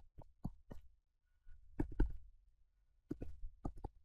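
Stylus on a tablet screen: light, sharp taps and clicks as digits are handwritten, a few at first, then a quicker run of them near the end.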